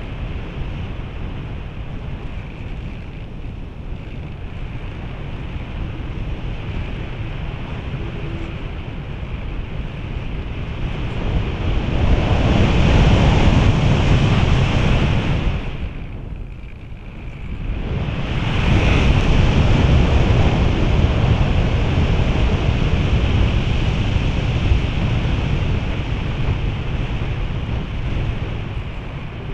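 Airflow rushing over the onboard camera of a radio-controlled slope-soaring glider. The rush swells loud about twelve seconds in, drops away briefly near the middle, then comes back loud and eases slightly near the end.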